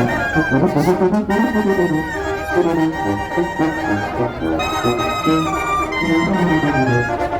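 Oaxacan village wind band playing a dance tune for the matachines. Brass and reeds carry the melody over a moving low brass bass line, steady and loud.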